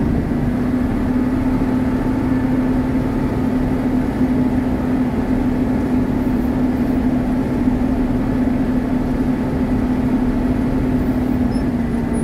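Caterpillar 140K motor grader's diesel engine running steadily, heard from inside the cab as a constant drone with a steady low hum.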